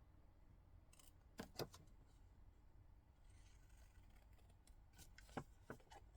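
A few faint snips and clicks of craft scissors cutting card, spread across otherwise near-quiet room tone.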